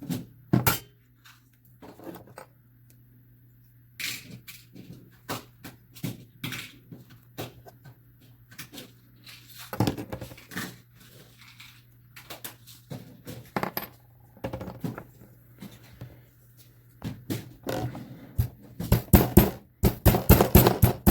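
Metal shears snipping and clicking through 20-gauge copper sheet, with handling knocks. About 18 seconds in, a hammer starts striking the copper in a fast, steady run of several blows a second.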